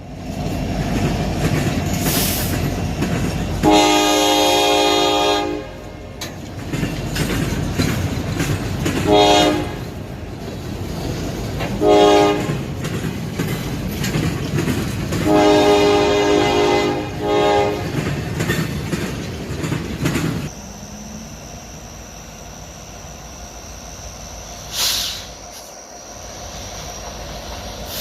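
Locomotive's five-chime Nathan K5 air horn sounding a chord in a series of blasts: one long, two short, then a long and a short. Underneath is the rumble and clickety-clack of the passing train, which drops away about twenty seconds in.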